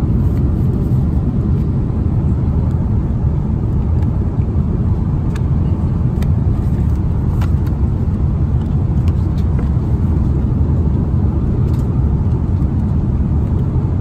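Steady low roar of an Airbus A330-300's engines and airflow heard inside the passenger cabin, unchanging in level, with a few faint clicks around the middle.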